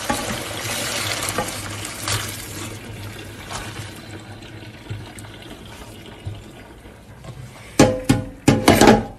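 Water running from a tap into a stainless steel pot, a steady rush that slowly fades. Near the end comes a quick cluster of loud sharp knocks with some ringing.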